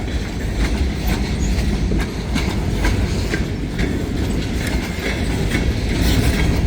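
Freight train cars rolling past close by: a steady low rumble with the wheels clicking irregularly over the rail joints.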